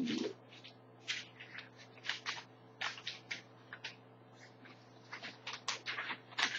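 Sheets of paper rustling and crackling as they are handled and sorted, in many short irregular bursts.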